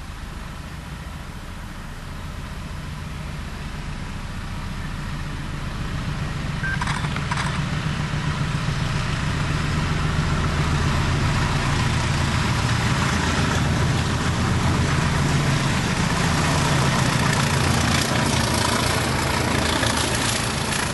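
A convoy of British Rail Class 20 diesel locomotives, with English Electric eight-cylinder engines, running under power as it approaches and passes close by. The engine sound grows steadily louder for about twelve seconds and then holds.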